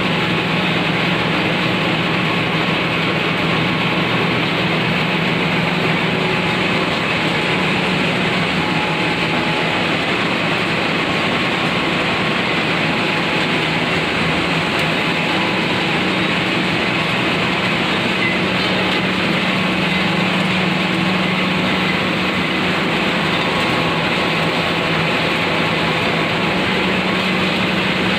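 Turmeric grinding machine running steadily: a constant loud machine noise with a strong low hum under an even hiss, unchanging throughout.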